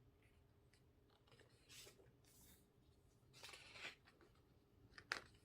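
Faint handling of a paper photobook: two soft swishes of pages being turned and a sharp click near the end.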